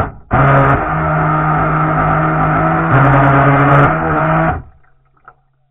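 RC boat's motor heard from a camera mounted on the boat, run in throttle bursts. A brief burst at the start, then about four seconds of steady running with small shifts in pitch, cutting off about four and a half seconds in.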